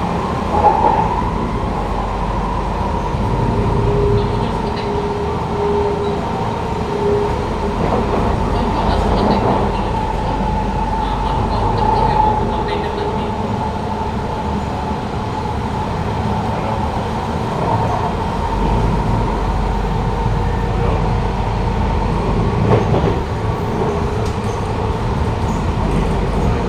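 Running noise inside a Kawasaki Heavy Industries C151 MRT car (GTO-VVVF variant) on the move: steady rumble of wheels on the rails with a steady whine from the traction equipment.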